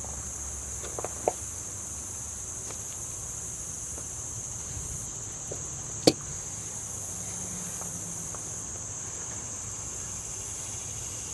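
Steady, shrill chorus of insects, with a few faint ticks about a second in and one sharp click about six seconds in.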